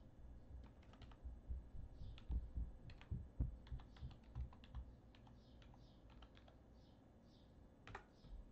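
Typing on a computer keyboard: a quick run of key clicks, a few heavier keystrokes with a dull thud a couple of seconds in, then a pause and a last click or two near the end.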